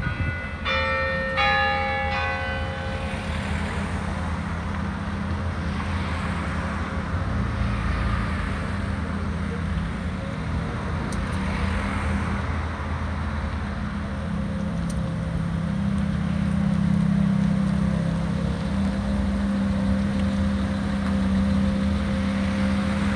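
Ferrari F430's V8 engine running at idle as the car creeps slowly forward, getting somewhat louder as it comes close. A bell rings several strikes over the first couple of seconds.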